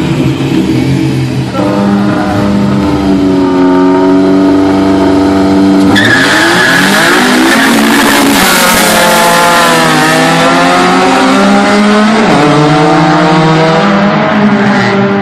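Car engine at full throttle in a street race, its pitch climbing through the gears and dropping at each upshift. About six seconds in, the car passes close with a loud rush of exhaust and a bend in pitch, then keeps climbing through another shift as it pulls away.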